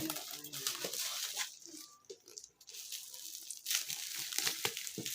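Crinkling, rustling handling noise with many short clicks, dipping briefly near the middle.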